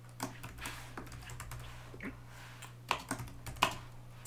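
Typing on a computer keyboard: irregular keystroke clicks in short runs, with a couple of harder key hits about three seconds in.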